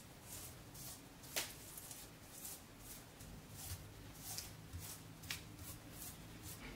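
Metal spoon spreading cinnamon-sugar butter filling over dough: faint, repeated scraping strokes, with a sharp click about a second and a half in and another about five seconds in.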